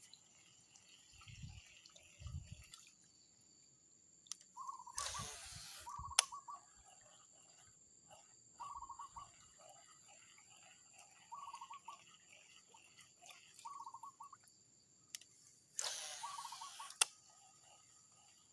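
Quiet outdoor ambience with a small animal calling in short, buzzy notes every couple of seconds. Twice, a hissing rush about a second long ends in a sharp click.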